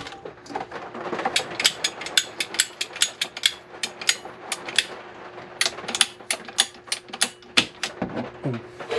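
Hand-held ratcheting plastic pipe cutter clicking as it is squeezed again and again, working its blade through a white plastic water supply pipe, with one louder snap near the end as the cut goes through.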